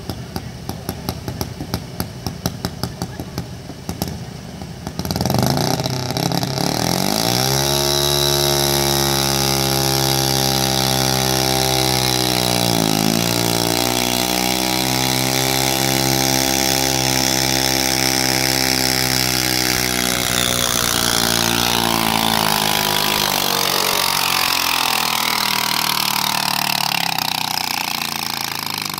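Pulling garden tractor's engine idling with a lumpy, rapid beat, then revving up about five seconds in and holding a loud, steady, high-pitched note under load as it drags the weight sled. The pitch dips briefly and recovers partway through. After about twenty seconds the note wavers and breaks up, and the sound drops off near the end.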